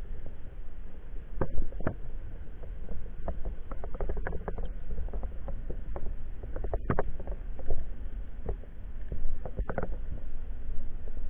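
Water noise on an underwater camera during a freedive: a steady low rumble, with scattered sharp clicks and knocks at irregular intervals.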